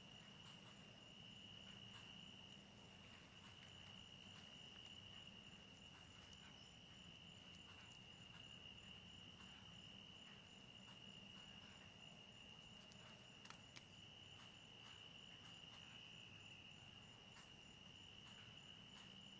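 Faint chorus of insects calling, a steady unbroken high-pitched trill, with two small clicks about two-thirds of the way through.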